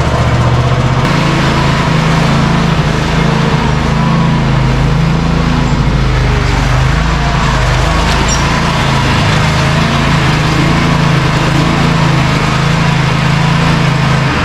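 Small farm vehicle's engine running steadily at close range as it is driven, with a constant low hum.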